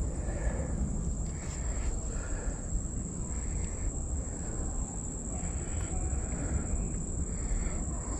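Summer creekside ambience: a steady, high-pitched insect drone, with a string of short calls repeating about once a second over low background noise.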